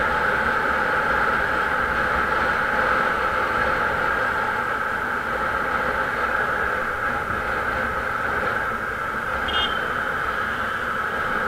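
Steady rush of wind and road noise from riding along a road, picked up by an action camera on the moving vehicle. A brief high beep sounds about ten seconds in.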